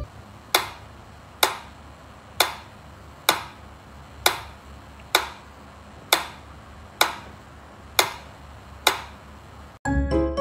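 Mechanical pendulum metronome ticking steadily, about one tick a second, ten ticks in all. Near the end it cuts off abruptly and music starts.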